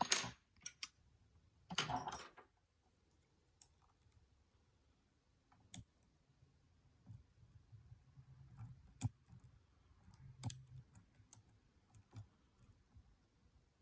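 Faint, scattered metallic clicks of a lock pick and tension wrench working the pin stack inside a padlock's cylinder. There are two louder rattles of the tools in the first two seconds, then irregular single clicks.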